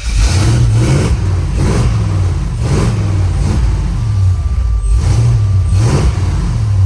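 Box Chevy's engine running loud with a deep exhaust rumble, surging in repeated revs about once a second; the sound cuts in suddenly at the start.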